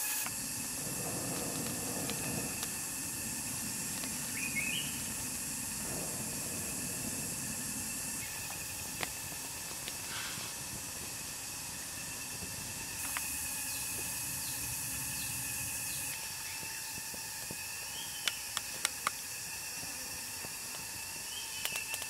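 Outdoor wood-fire cooking ambience: a small fire burning under a flat stone with a steady hiss, over a steady drone of insects and a few short bird chirps. Scattered sharp snaps, with a quick cluster of them about three-quarters of the way through.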